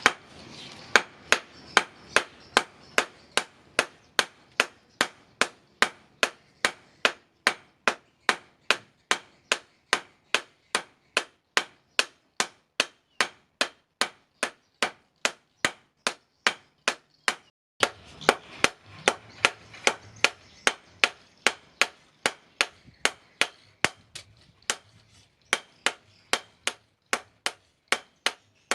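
Hand hammer striking steel on an anvil while forging a knife blade, about two blows a second in a steady rhythm, each with a short ring. A low background noise comes in about two-thirds of the way through.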